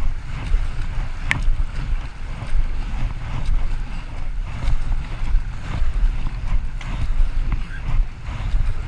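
Kayak being paddled through a shallow river rapid: rushing water and paddle strokes over a heavy low rumble of wind and water buffeting the action camera's microphone, with one sharp knock about a second in.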